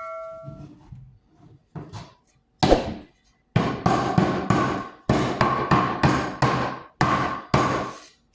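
Hammer tapping wooden dowels into the holes of an old organ valve stack: a metallic ring fades out at first, then two separate taps, then a steady run of blows about two a second.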